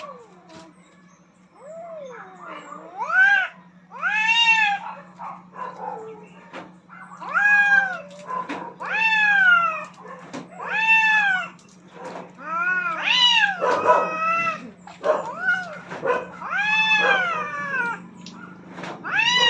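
Two cats caterwauling at each other in a fight for dominance: long yowls that rise and fall in pitch, one after another, starting about two seconds in, over a steady low hum.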